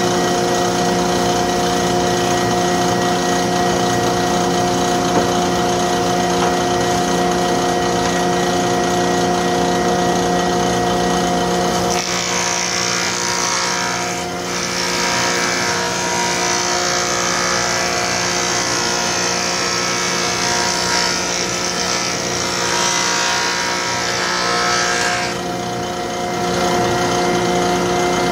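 Delta thickness planer running with a steady motor hum. About twelve seconds in, a board feeds through and the cutterhead's loud high-pitched hiss of planing takes over for about thirteen seconds. It is a light pass to bring the resawn stock to a consistent thickness, and then the machine runs empty again.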